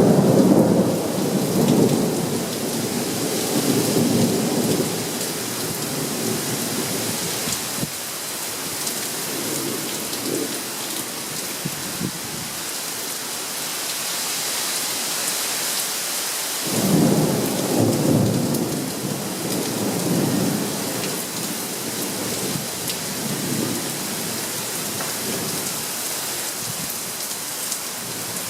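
Thunderstorm: rain falling steadily with rolling thunder. A rumble dies away over the first few seconds, and a second peal breaks suddenly about 17 seconds in and rolls on for several seconds.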